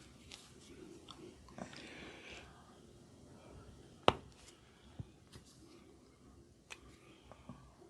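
Hands working on a head during a barber's massage: soft rustling of hair and skin with scattered sharp clicks and cracks, one much louder crack about four seconds in.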